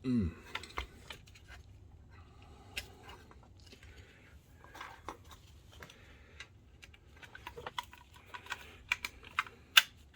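Irregular small clicks and taps of plastic and metal projector parts being handled and fitted back into place. They come faster and louder toward the end, with one sharp click the loudest.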